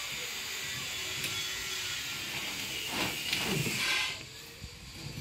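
Steady hissing rustle as a large folding umbrella's nylon canopy and runner are worked up its pole, with a few swishes near the end, then dropping away about four seconds in.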